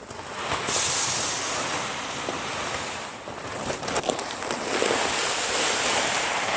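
Poultry feed poured from a bag into a feeder: a steady rushing hiss of pellets or grain sliding out, with a short lull about three seconds in.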